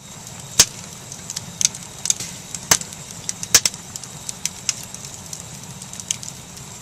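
Wood fire burning: a steady low rush of flames with irregular crackles and sharp pops, three of them much louder snaps.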